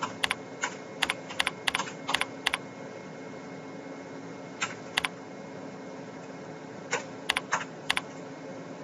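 Computer keyboard keys being typed: a quick run of about eight keystrokes, then a pause, two more near the middle and a short burst of four near the end, over a faint steady hum.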